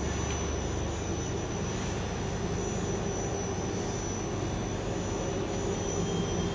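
Daewoo Puma CNC lathe running: a steady mechanical hum with a thin, steady high-pitched whine over it.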